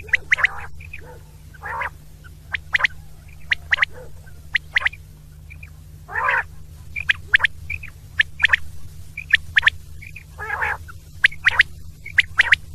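Quail calling over and over: short sharp notes in quick groups of two or three, with a longer, rougher note about six seconds in and again about ten seconds in, over a steady low hum.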